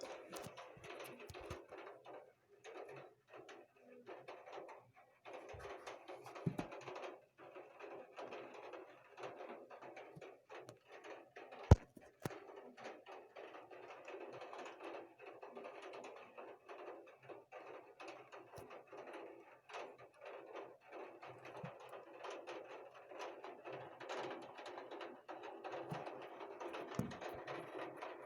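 Rain falling: a dense, steady patter of many small drop ticks, with one sharp click a little before halfway.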